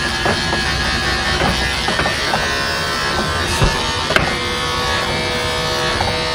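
Corded electric dog clipper buzzing steadily as it cuts through a poodle's tangled coat, with two sharp clicks about three and a half and four seconds in.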